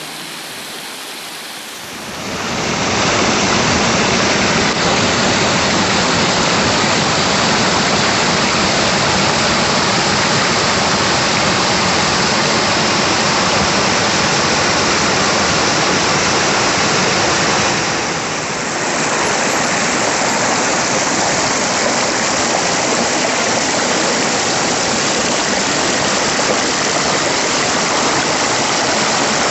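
Waterfall: a loud, steady rush of falling water that sets in about two seconds in, with a brief dip in level around two-thirds of the way through.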